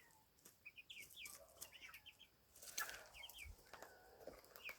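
Faint chickens giving short, high-pitched chirps and soft clucks in little runs of three or four, with a few light clicks between.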